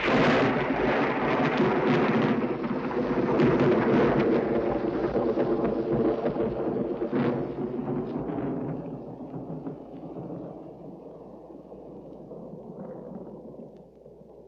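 The Castle Thunder sound effect: a thunderclap's long rolling rumble, crackling for the first several seconds, with one sharp crack about seven seconds in. It then slowly fades to a low, dull rumble.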